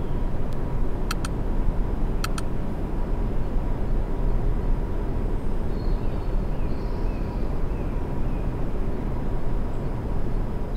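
Boeing 737-400 freighter's twin CFM56-3 turbofans running at taxi idle: a steady rumble with a faint thin whine. Two quick double clicks sound about a second and about two seconds in.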